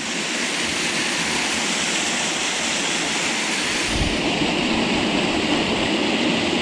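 Small waterfall rushing steadily, a continuous hiss of falling water, with a brief low thump about four seconds in.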